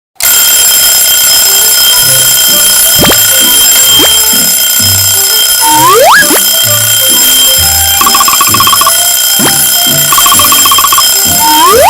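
Cartoon soundtrack: a steady electronic alarm-like ringing over a bass line of short low notes, with quick upward whistle-like sweeps and two bursts of fast trilling in the second half.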